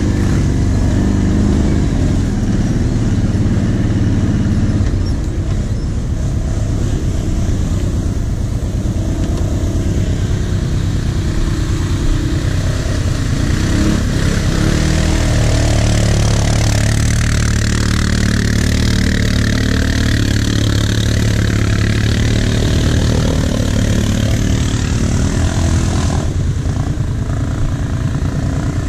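Quad bike (ATV) engines running continuously. The ATV carrying the camera rides a trail and then runs at a standstill, while a second quad works through a muddy water channel.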